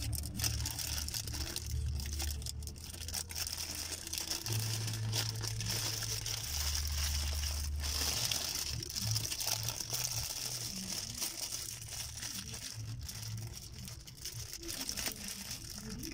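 Paper sandwich wrapper crinkling and rustling in the hands as it is unwrapped and folded back, in many short irregular crackles. A low steady hum runs underneath.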